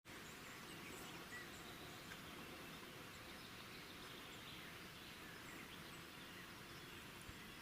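Faint outdoor ambience: a steady hiss with a few faint, short bird chirps.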